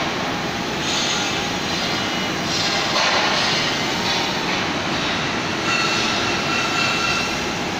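Flytec T18 mini quadcopter's propellers buzzing steadily in flight, the buzz swelling and easing every second or two, with a thin whine over it in the last couple of seconds.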